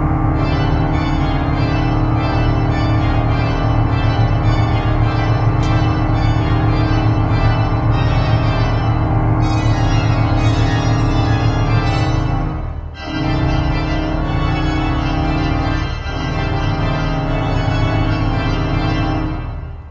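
Grand pipe organ playing loud, dense held chords over a deep bass, breaking off briefly twice about two-thirds of the way through before sounding again.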